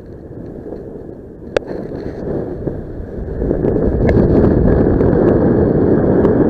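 Wind rushing and buffeting over the microphone of a paraglider pilot in the air. It is a rough, low rumble that grows louder about three seconds in, with one sharp click about a second and a half in.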